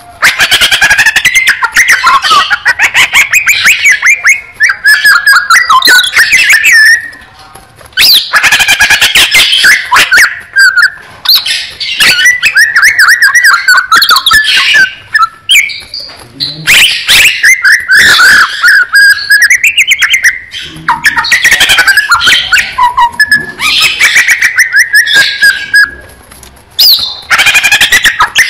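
Cucak ijo (green leafbird) singing loudly: phrases of rapid, varied warbling and chirps, each several seconds long, broken by brief pauses.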